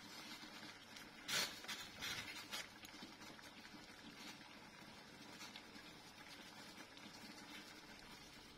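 A stainless-steel pot of guava leaves simmering on a gas stove, with a steady faint hiss. Wooden chopsticks knock against the pot several times between about one and three seconds in, the loudest knock at about a second and a half.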